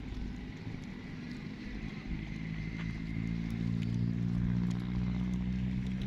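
A motor vehicle engine running with a steady hum, growing louder from about two seconds in and easing off slightly near the end.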